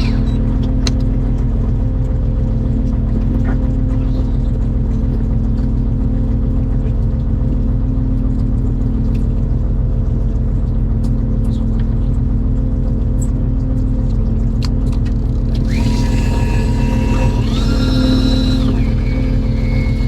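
Fishing boat's engine running steadily with a deep hum. About three-quarters of the way through, a high whine joins it, stepping up and then back down in pitch.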